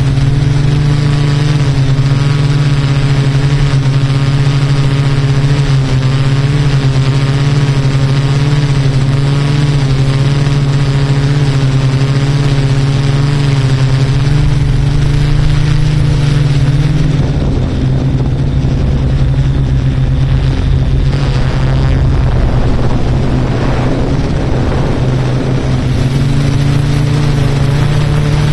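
Yuneec Q500 4K quadcopter's motors and propellers humming steadily with a slightly wavering pitch. About two thirds of the way in, the hum gives way to a rougher, rushing noise for several seconds, then the steady hum returns near the end.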